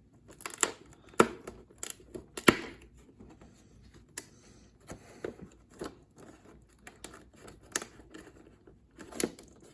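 A cardboard advent calendar pocket being opened by hand: scattered tearing and crinkling, with a series of sharp clicks and taps, the loudest about a second and two and a half seconds in.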